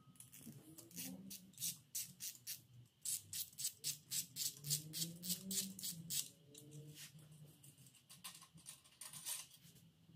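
Socket ratchet clicking in quick, even strokes, about three or four a second, as an ARP thread chaser is turned in a head-stud hole of a Ford 4.6 four-valve block to clean the threads; the clicking pauses briefly after the middle and resumes near the end.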